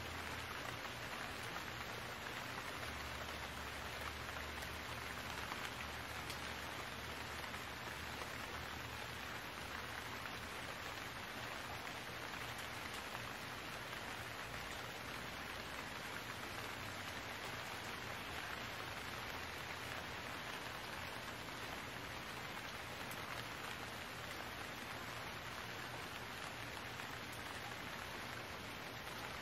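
Steady rain falling, an even hiss without breaks, with a low steady hum underneath that is a little stronger in the first third.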